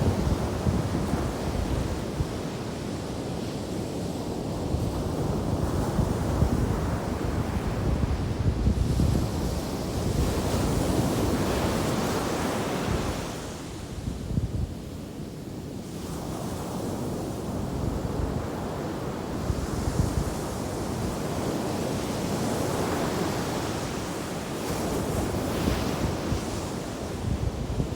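Ocean surf breaking and washing up the beach in continuous swells, with wind buffeting the microphone. The surf eases briefly about halfway through, then builds again.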